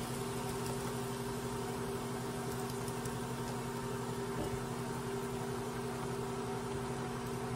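A steady machine hum with a low drone, under a soft frying sizzle as blended tomato is strained into a hot pan of toasted fideo noodles.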